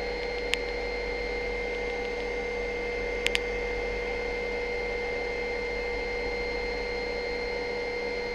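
Helicopter in climbing flight, a steady drone with a constant high whine over it. Sharp clicks come about half a second in and as a quick pair a little after three seconds.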